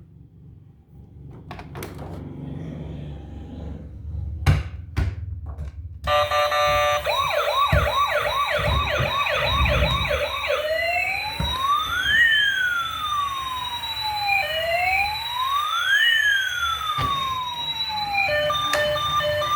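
A few knocks over a low rumble, then about six seconds in a toy emergency vehicle's electronic siren switches on. It starts as a fast yelp of quick rising sweeps, changes after about four seconds to a slow wail that rises and falls, and steady beeping tones come in near the end.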